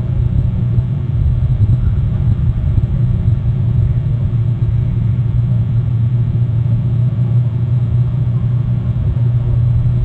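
Motorboat engine running as the boat passes: a steady, low drone.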